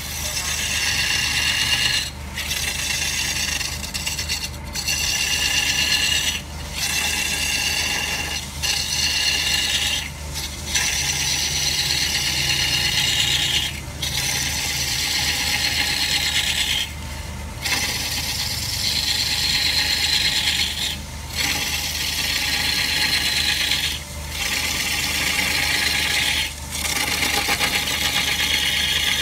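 Long-handled turning tool cutting into a large green log spinning on a wood lathe: a continuous rasping shear as shavings tear off. It is broken by brief gaps every two to four seconds, over a steady low hum.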